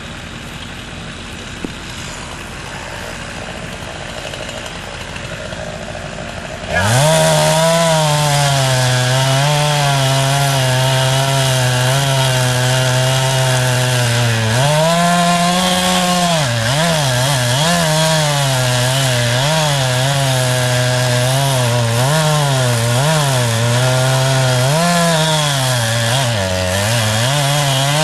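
A quieter engine runs steadily for about seven seconds. Then a two-stroke chainsaw comes in loud, revving up and cutting wood, its pitch dipping and recovering over and over as the chain bites.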